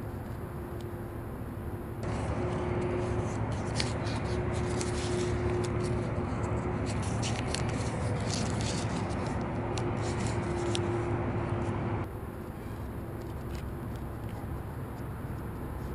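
Sheet of paper being folded into an origami crane close to the microphone: crisp crackles, rustles and taps of creasing from about 2 s in until about 12 s. Before and after, only a steady low outdoor rumble.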